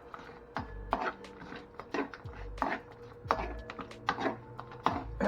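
A spoon stirring yogurt, blueberries and walnuts in a bowl, scraping and clicking against the dish in repeated strokes about twice a second.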